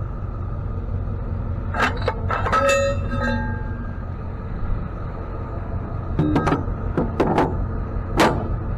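Steady low rumble of a truck's running engine, with scattered short clicks, rattles and brief squeaks over it.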